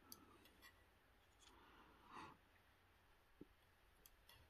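Near silence with a few faint, light clicks: stamp tweezers picking up and setting down paper stamps on a wooden table.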